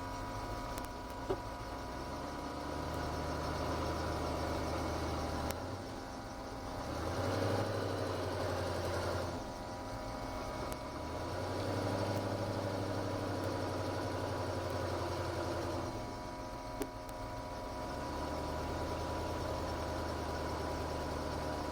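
Ford GT40's V8 engine heard from on board at low parade speed, its revs rising and falling several times as the car gently accelerates and eases off.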